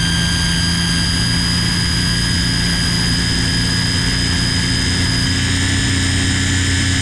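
Ryobi string trimmer running at a steady speed, a loud high whine with a low hum under it; the pitch shifts slightly about five seconds in.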